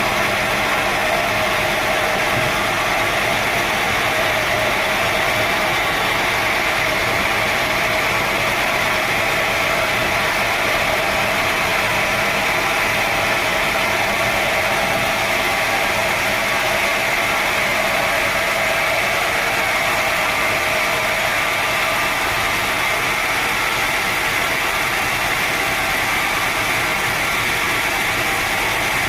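Sawmill saw running, a loud, steady, unbroken mechanical noise.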